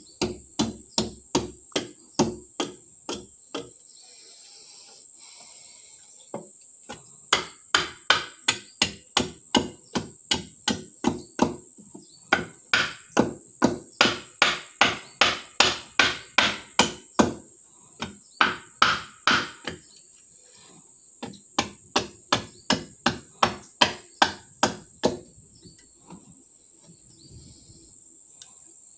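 A long steel blade chopping at the edge of a small wooden board to round off its corners: sharp, even strikes about two to three a second, in several runs with short pauses, stopping a few seconds before the end.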